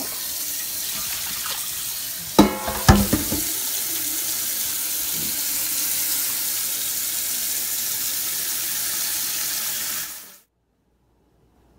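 Kitchen faucet running steadily, with a couple of loud clattering knocks about two and a half to three seconds in. The water shuts off abruptly about ten seconds in.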